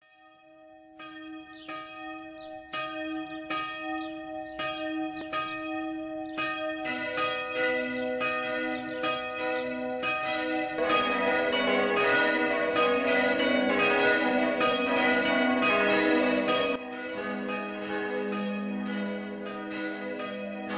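Church bells ringing in a peal: one bell striking about twice a second as the sound fades in, a lower bell joining about seven seconds in and more bells about eleven seconds in, making a full, loud peal, with one bell dropping out near the end.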